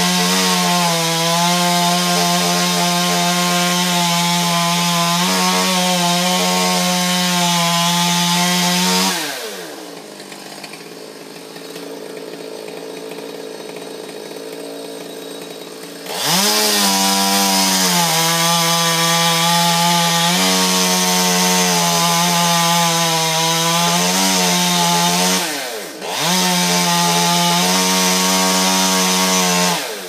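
Chainsaw cutting through a maple trunk at full throttle, its pitch sagging slightly at moments as it loads in the wood. The throttle is let off about nine seconds in and the saw goes quiet for several seconds. It revs back up and cuts again, with a brief let-off near the end before the last burst.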